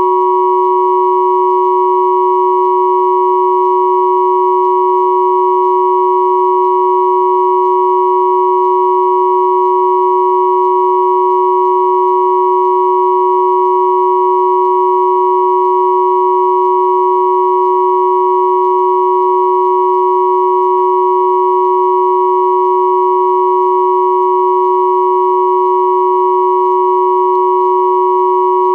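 Three pure sine tones of 369, 963 and 1111 Hz sounding together as one steady, unchanging drone.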